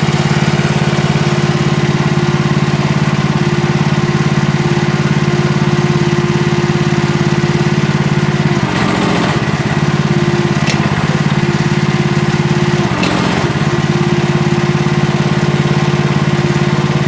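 Small gasoline engine of a 1-ton mini excavator running steadily. Its even note breaks briefly twice, about nine and thirteen seconds in, each time with a short hiss.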